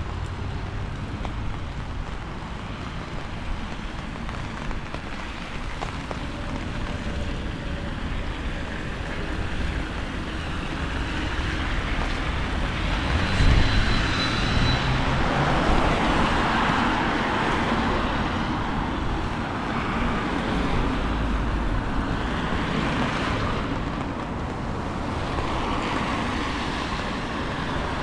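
Town-centre street traffic noise with wind. It grows louder about halfway through, as if a vehicle is passing close, with a brief low thump at the loudest point.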